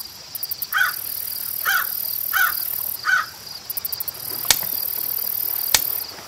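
Intro soundscape of crickets chirping steadily, with four short chirping calls from another animal in the first half. Two sharp mouse clicks come in the second half, as the animated subscribe button is clicked.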